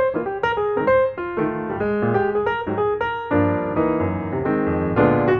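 Background music played on piano: a melody of struck notes over chords.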